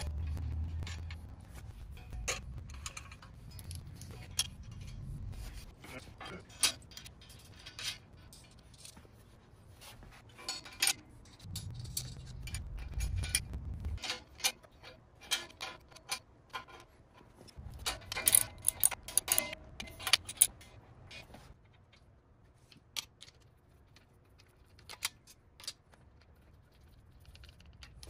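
Scattered metallic clinks and rattles of wrenches, bolts and steel brackets being handled and tightened, in separate bursts of sharp ticks.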